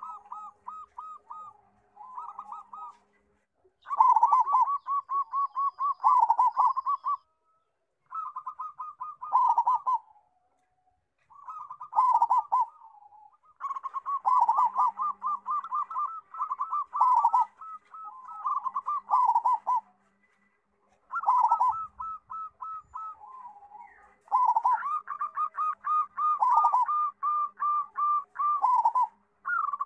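Zebra dove (perkutut) singing its cooing song: repeated phrases of rapid staccato notes, each run lasting a few seconds, separated by brief pauses.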